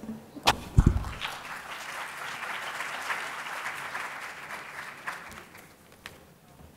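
Audience applauding for about five seconds, fading away toward the end. A low thump is heard just before the clapping swells.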